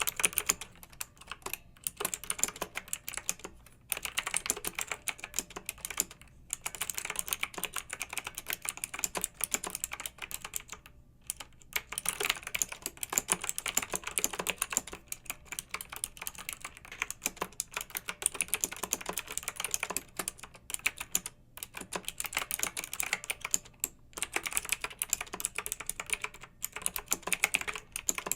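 Clicky mechanical keyboard being typed on fast, in dense runs of keystrokes broken by short pauses every few seconds, with a longer pause of about a second near the middle.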